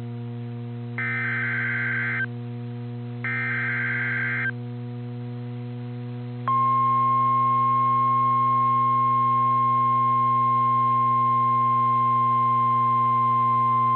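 NOAA Weather Radio alert signalling: two short warbling SAME data bursts of about a second each, then about six and a half seconds in the steady single-pitch 1050 Hz warning alarm tone starts and holds, the signal that a warning-level alert follows. A constant low hum runs underneath.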